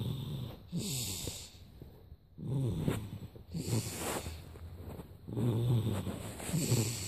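Heavy snoring: a run of low, rattling snores, each followed by a breathy hiss.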